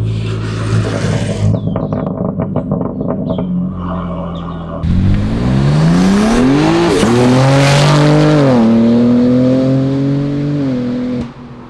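BMW M4 Competition's S58 twin-turbo straight-six through an Akrapovic titanium exhaust. It idles steadily, then gives a run of sharp pops. About five seconds in it revs up hard, its note rising with a short dip in pitch midway, then holds a high steady note before cutting off suddenly near the end.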